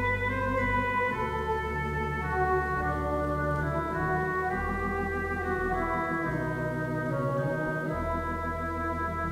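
Organ music: slow sustained chords moving from one to the next over held bass notes.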